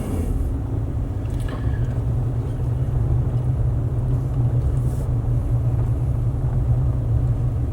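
A vehicle being driven, heard from inside: a steady low engine and road rumble.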